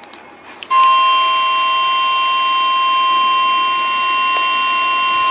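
NOAA Weather Radio warning alarm tone: a few brief clicks, then a steady, unwavering alert tone that starts about a second in and holds. It signals that a warning broadcast is about to follow.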